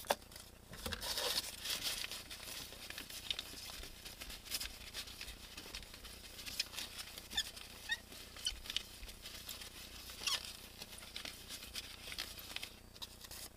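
Newspaper wiping a car windshield clean with Windex: paper rubbing and crinkling on the glass, with short squeaks now and then.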